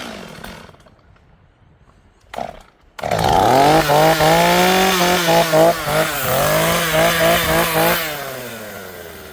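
A few knocks, then a chainsaw starts about three seconds in and runs at high revs, its pitch dipping briefly several times, before falling away near the end.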